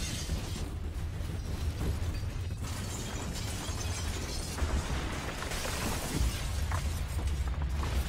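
Earthquake shaking: a deep continuous rumble under dense rattling and clattering, with a few sharp crashes near the end.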